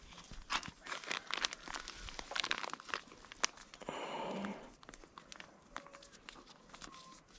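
Crinkling and rustling of material being handled, with scattered sharp clicks and a denser burst of rustling about four seconds in.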